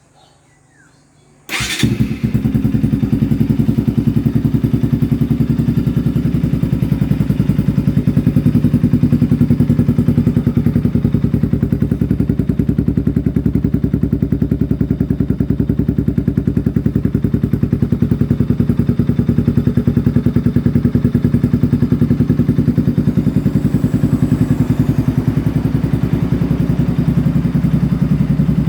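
Bajaj Pulsar 200's single-cylinder engine starting about a second and a half in, then idling steadily through an aftermarket Akrapovic exhaust with a fast, even pulsing beat.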